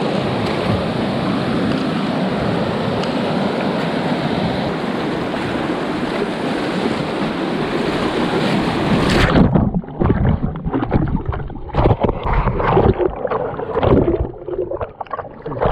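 Whitewater rapids rushing loudly and steadily past a stand-up paddleboard. About nine seconds in the sound suddenly turns muffled and choppy, with uneven surges of splashing as the board plunges through the waves and water washes over the board-mounted camera.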